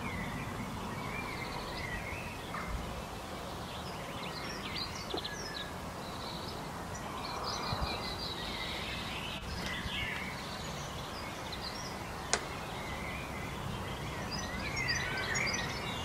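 Early-morning ambience: many small birds chirping and twittering over a steady low background hum, with busier bursts of calls around a third of the way in and near the end. A single sharp click about three-quarters of the way through.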